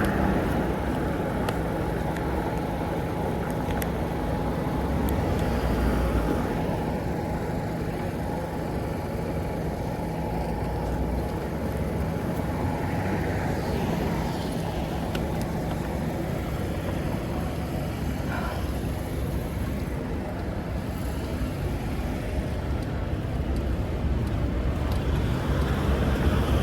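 Steady low rumble of a running vehicle, with a faint steady hum on top and no sudden events.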